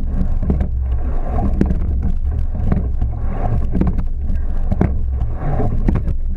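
Racing rowing shell under way: a steady low rumble of wind and water on the boat-mounted microphone, with repeated sharp clunks of the oars working in their oarlocks and swells of water noise with each stroke.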